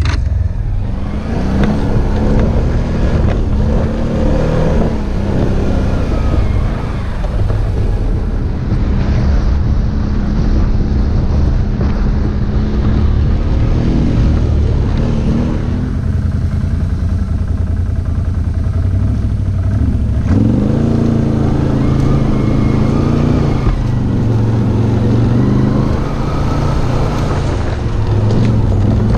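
Quad bike (ATV) engine running under load on rough off-road ground, its note rising and falling with the throttle; it drops back about 16 seconds in and picks up again around 20 seconds.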